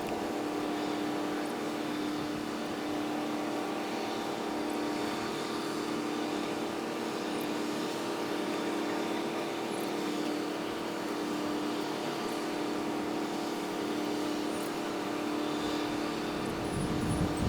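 Steady mechanical drone with a strong, constant hum and a haze of background noise.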